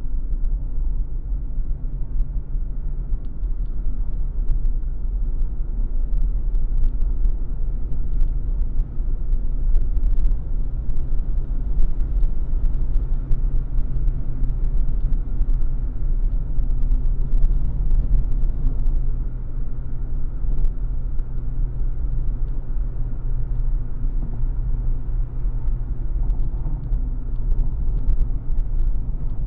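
Car engine and road noise heard from inside the cabin while climbing a mountain road: a steady low rumble with the engine note holding fairly even, and scattered faint ticks and rattles.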